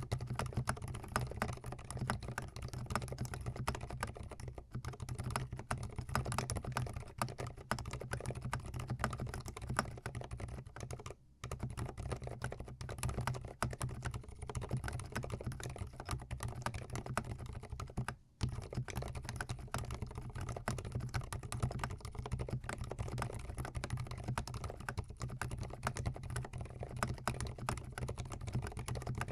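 Fast, continuous typing on a GMMK Pro mechanical keyboard, its key switches clacking in a rapid stream. Two brief pauses break the typing, about 11 and 18 seconds in.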